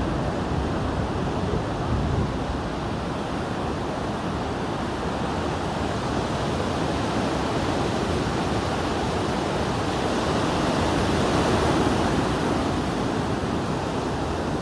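Ocean surf breaking and washing up the beach, a steady rush that swells louder around two-thirds of the way through.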